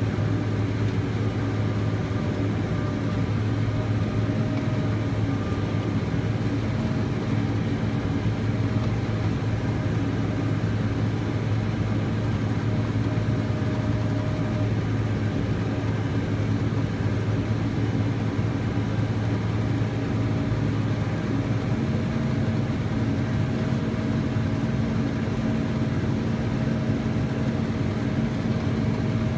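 Diesel engine of a New Holland tractor running steadily with a round baler hitched behind: an even low hum with a few faint steady whining tones over it.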